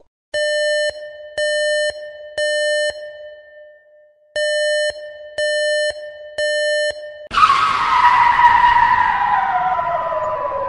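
Edited-in cartoon sound effects: six short electronic beeps, in two sets of three about a second apart. Then, from about seven seconds in, a loud hissing skid-like effect whose tones fall in pitch, with one steady tone held underneath.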